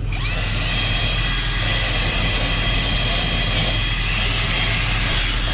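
An electric motor starts up with a high whine that rises over the first half-second, then runs steadily with a rushing sound and a low hum.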